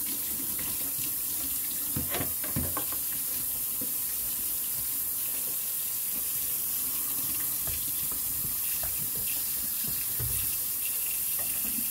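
Kitchen tap running steadily into a metal sink as a plastic litter-box pan and sifting grate are rinsed under it. A few knocks of the plastic pieces against the sink, twice about two seconds in and once near the end.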